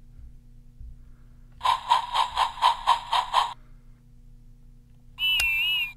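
Electronic sound effects from a Golden Bear talking Whiff toy engine's speaker. First comes a chuffing steam-engine sound, about four chuffs a second for about two seconds. Near the end a warbling whistle tone starts.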